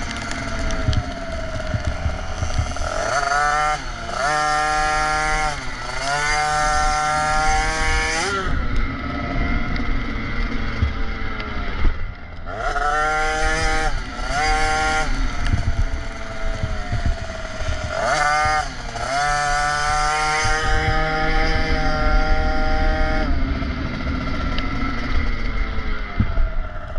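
KTM SX 50's small two-stroke engine under riding: its revs climb and fall back again and again as the throttle is opened and closed, over a low wind rumble on the microphone.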